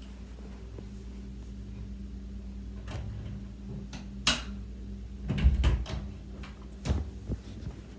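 A few knocks and thumps over a steady low hum. There is a sharp click about four seconds in, a louder cluster of thumps about a second later, and another thump near seven seconds, likely from the phone being handled and carried.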